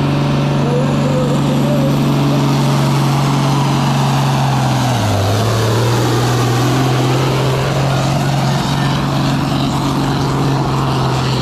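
Superfarm-class pulling tractor's engine running hard at high revs. Its pitch drops about five seconds in and holds lower, as the engine loads down.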